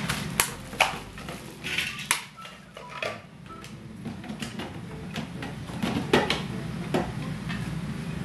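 Hard plastic toy-kitchen parts knocking and clicking as they are handled and fitted together, some rustling, over a steady low hum.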